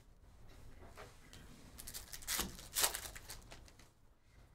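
Baseball trading cards rustling and sliding against each other in the hands as they are sorted, a short run of scraping rustles from about two to three seconds in.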